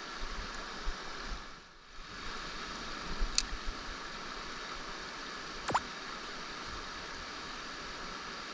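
Mountain stream water rushing steadily, briefly quieter about two seconds in, with two short sharp high sounds at about three and six seconds.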